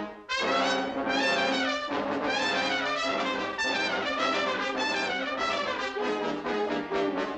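Orchestral background music with brass to the fore, playing busy runs of quick notes. It drops out for a moment just after the start, then comes straight back in.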